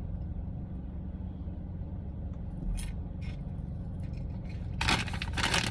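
A steady low hum, then about five seconds in a loud, crackling crinkle of a plastic snack bag being handled.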